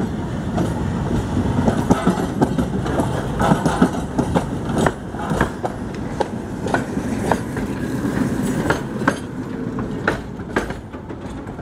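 Tatra T3SUCS tram running past, a low rumble of its running gear with a run of sharp, irregular clacks as its wheels pass over the track.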